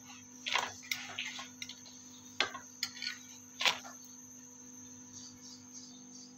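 A paratha being flipped on a flat tawa griddle, with a handful of short slaps and taps in the first four seconds as it lands and is handled. A steady hum runs underneath.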